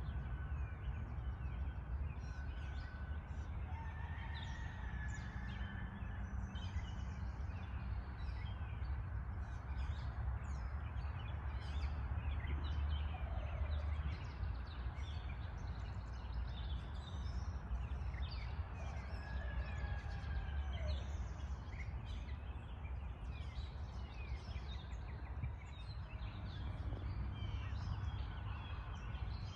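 A spring dawn chorus of many songbirds: dense overlapping chirps, trills and whistles that go on throughout, with a few longer clear whistled notes, over a steady low rumble.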